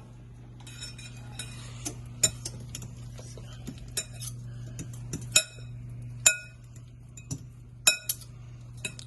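Metal measuring cup clinking against a container as oats are scooped and measured: a run of light clicks and scrapes, with about four sharp ringing clinks. A steady low hum runs underneath.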